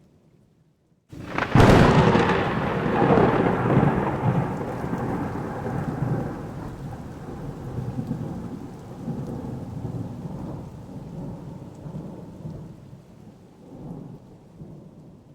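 Thunderclap from a nearby lightning strike: a sudden sharp crack about a second and a half in, then a long rolling rumble that slowly fades, swelling again a few times before dying away.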